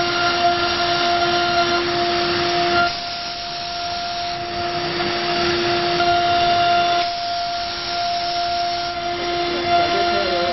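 CNC router spindle running with a steady whine over a rushing cutting noise as it carves; the sound drops in level about three seconds in and again about seven seconds in.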